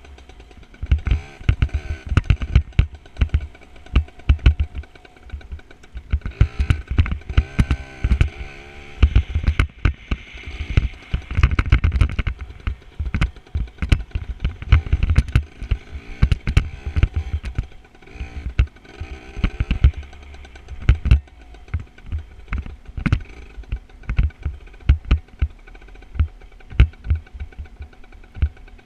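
Dirt bike engine running while being ridden, its pitch rising and falling as the throttle opens and closes, under many sharp knocks and heavy low thumps.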